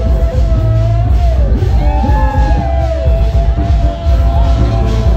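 Loud music with a heavy bass beat and a held, wavering melody line.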